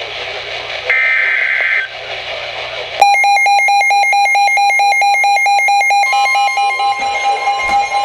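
Midland weather alert radio sounding an Emergency Alert System warning: about a second in, a one-second screech of SAME digital header data, then about three seconds in a loud, rapidly pulsing alarm beep starts. About six seconds in the beep turns steady and a second steady alert tone joins it, marking a severe thunderstorm warning.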